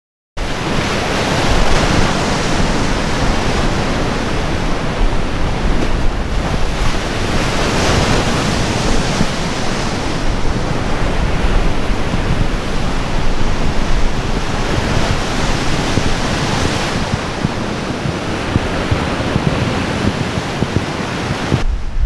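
Large gale-driven lake waves breaking and surging against concrete breakwater blocks and the shore, with strong wind buffeting the microphone. The surf swells louder every few seconds as waves crash.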